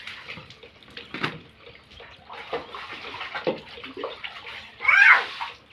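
Water from a garden hose and a poured mug splashing and trickling onto a concrete floor, an uneven splashing. Near the end, a loud, short high cry cuts in.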